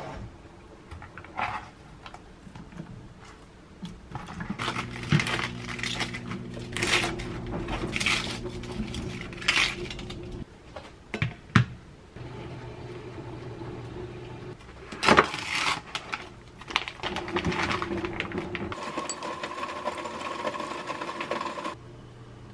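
Kitchen food-prep handling sounds: clinks and knocks of bowls, a plastic colander and utensils, and hands moving vegetables, with a few sharp knocks, the loudest about fifteen seconds in, over a steady low hum.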